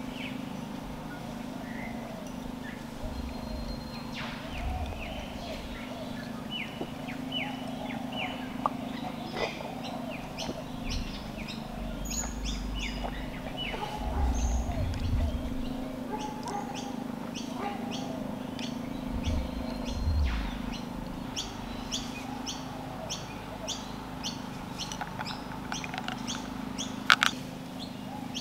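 Small birds chirping: a run of short falling chirps, then rapid repeated high chirps over the second half, over a steady low hum. A sharp click near the end.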